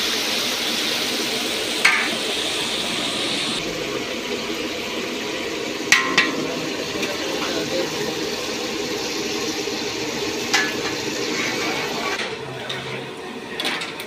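Battered fish deep-frying in a large karahi of hot oil, a steady sizzle and bubbling. A metal skimmer strikes the pan with four sharp clinks as the pieces are stirred and lifted.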